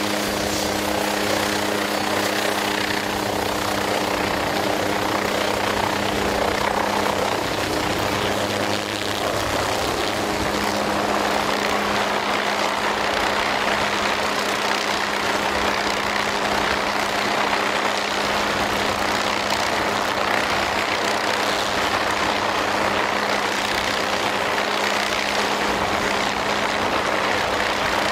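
An MQ-8B Fire Scout unmanned helicopter's turboshaft engine and rotors running at flight power as it takes off and hovers. It makes a loud, steady sound with a constant low hum, whose pitch wavers briefly about eight seconds in.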